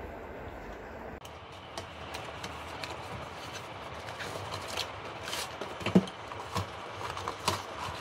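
Cardboard retail box of an Intel processor being opened by hand: scattered scrapes, crinkles and small taps as the sleeve and inner cardboard are pulled apart, with one sharper knock about six seconds in.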